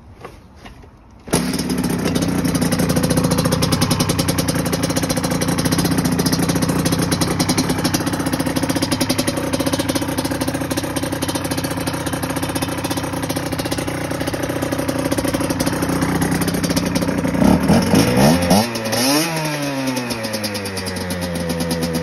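2008 Aprilia SX 125's single-cylinder two-stroke engine starting from cold below freezing: it fires about a second in and runs steadily, then is revved in several throttle blips near the end.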